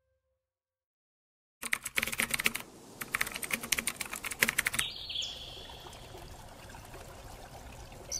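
Typewriter sound effect: a fast clatter of key strikes in two runs with a short pause between, then a single bell-like ding about five seconds in, followed by a faint steady hiss.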